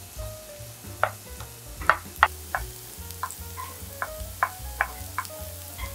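Wooden spatula stirring minced garlic and green onion in hot oil in a nonstick frying pan, with seared salmon cubes: a light sizzle with about a dozen irregular scrapes and clicks of the spatula against the pan.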